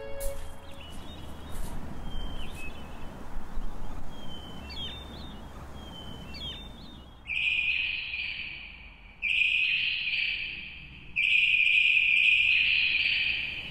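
Birds chirping outdoors with a few short calls, then three louder high-pitched bursts, each about two seconds long, starting suddenly and fading, from about seven seconds in.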